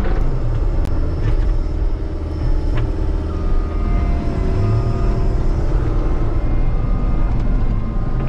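John Deere 333E compact track loader's diesel engine running with a steady low rumble, heard from inside the cab as the machine drives, with faint whines and ticks at times.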